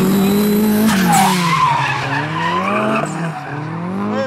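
Two drift cars running hard in tandem: engines at high revs, the pitch dropping about a second in and then rising and falling repeatedly with the throttle, over tyre squeal and skidding.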